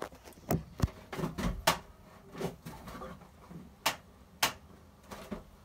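About ten light, sharp clicks and knocks at irregular intervals, with quiet in between.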